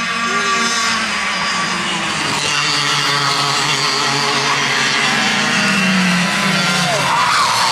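Several 60cc two-stroke kart engines buzzing at racing speed, their pitch rising and falling as the karts go through a corner, with one kart passing close.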